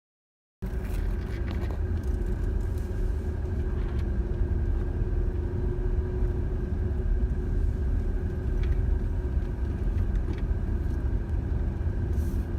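A brief digital silence, then steady low road rumble and engine noise inside a moving van, with faint held tones above it.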